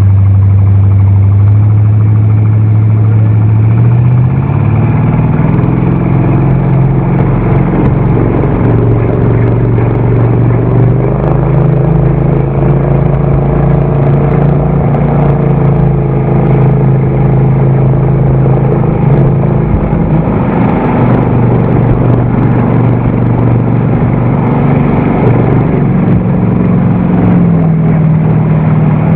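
Classic motorboat's engine running hard at speed over the rush of its wake. The engine note steps up in pitch about four seconds in and again near the end.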